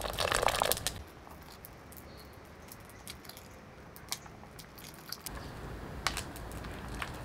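Diced vegetable cubes being scraped off a plate with a metal ladle into a pot of liquid: a clatter of falling pieces and ladle clinks in the first second, then quieter with a few light clicks.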